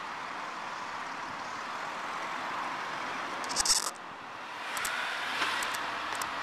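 Off-road 4x4 driving slowly over grass, heard from inside the vehicle as a steady running noise. There is a short loud clatter about three and a half seconds in, and a few light clicks near the end.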